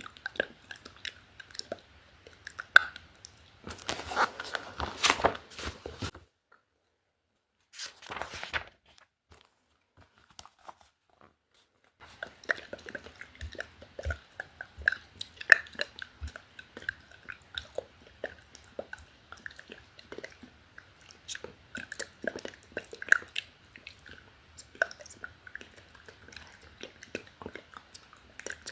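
Close-miked ASMR mouth sounds: rapid, irregular wet clicks and smacks of lips and tongue. They break off into dead silence for several seconds about six seconds in, then resume.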